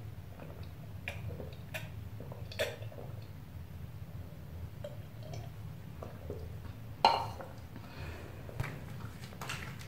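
Rinsing the mouth with water from a cup after brushing teeth: faint sips and small clicks of the cup, and a short louder splash about seven seconds in, over a steady low hum.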